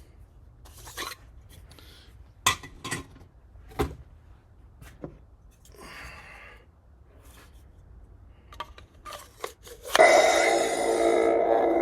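Light clicks and rubbing of hard parts being handled as the saber core is fitted into a carbon-fibre sleeve, then, about ten seconds in, the lightsaber's Proffie sound board suddenly ignites into a loud, steady blade hum through the hilt's speaker.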